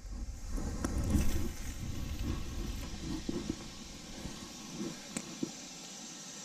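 Rumbling, rustling handling noise with a few knocks as a spinning rod and reel are worked close to a body-worn camera, over a steady hiss. The rumble eases after about four seconds, leaving the hiss and a couple of faint clicks.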